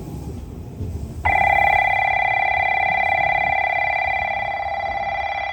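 Station platform train-approach warning bell: an electronic bell ringing steadily with a fast trill, starting suddenly about a second in, signalling that a train is about to arrive.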